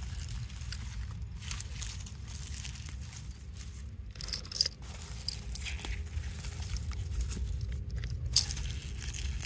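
Rustling and crinkling of dry onion tops, leaves and sandy soil as onions are pulled up by hand, over a steady low rumble, with two sharp clicks, one midway and one near the end.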